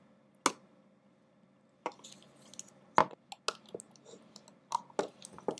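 Irregular sharp clicks and taps of a plastic loom hook and rubber bands against the plastic pegs of a rubber-band loom, about eight in all, the loudest about three seconds in.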